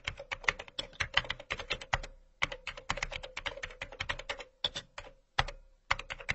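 Computer keyboard typing sound effect: rapid clicking keystrokes, several a second, in quick runs with short pauses, thinning out toward the end.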